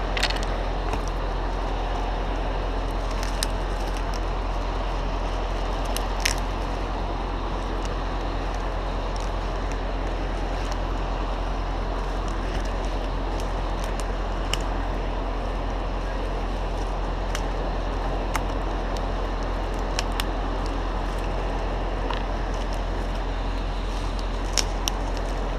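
A heavy engine running steadily, likely the crane's, with scattered sharp clicks and ticks over it.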